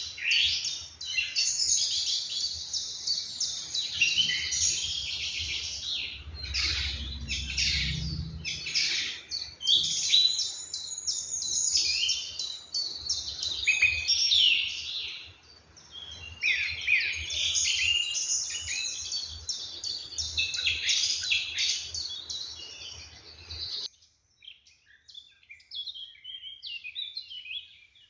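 Morning birdsong chorus in a park, several birds singing and chirping at once with quick varied trills. Near the end it drops suddenly to a few fainter calls.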